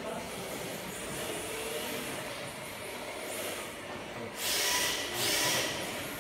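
Steady background noise of a large hall, then two short, loud hisses about four and a half and five and a quarter seconds in.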